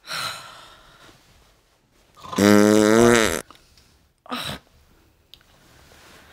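Loud, exaggerated snoring: a rasping breath at the start, one long buzzing snore about two and a half seconds in, and a shorter breath sound about four seconds in.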